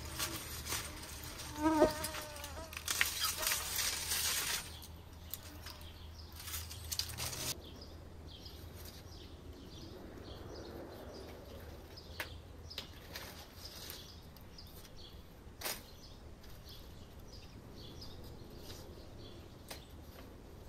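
Leaves and stems of potted pechay rustling as crowded plants are pulled out by hand, a crinkly rustle for the first seven seconds or so. Then a quieter background with a few faint clicks.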